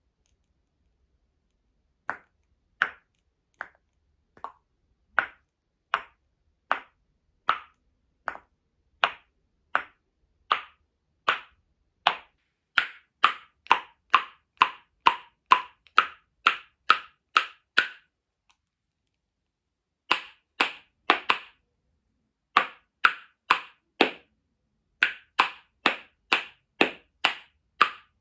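A pair of painted wooden spoons clacked together by hand as a rhythm instrument: single sharp clacks in a steady beat, a little over one a second at first, then quickening to two or three a second, with two short breaks near the end.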